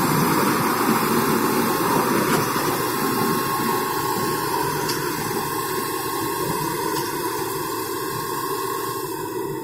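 Balkar Grain Master combine harvester running steadily while its tipped straw tank unloads straw: a dense, even machine noise that eases off slowly toward the end.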